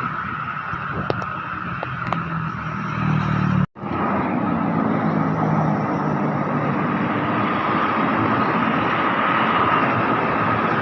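Electric commuter train running past: a steady rumble with a held high tone over it. The sound cuts out abruptly for an instant a little over a third of the way in, then the same steady rumble goes on.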